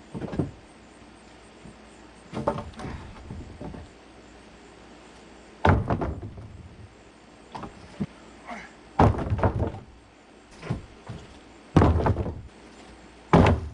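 Old wooden 2x6 deck boards being torn up and thrown down: several heavy wooden thuds and knocks at irregular intervals, the loudest in the second half.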